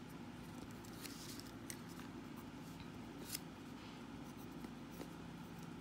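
Ballpoint pen writing on paper: faint, irregular scratching strokes over a low steady hum.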